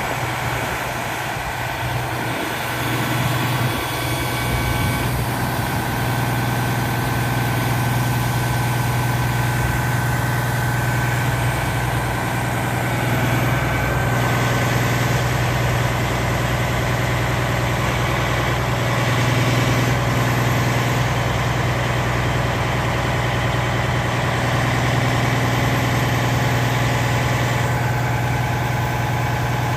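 Detroit Diesel Series 60 inline-six diesel of a fire-service tower ladder truck running steadily at idle, a constant low drone, while its hydraulic front stabilizer jacks lower to the ground.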